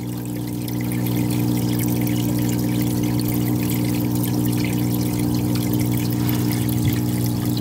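Aquarium filter pump running with a steady electric hum while water trickles and splashes from its outflow into the tub.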